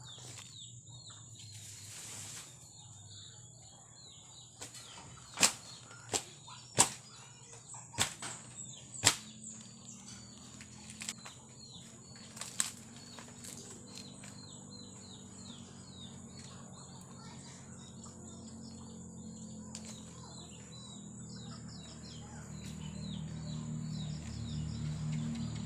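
Outdoor ambience of small birds chirping over a steady high insect whine, broken by about six sharp knocks in the first half. A low hum grows louder near the end.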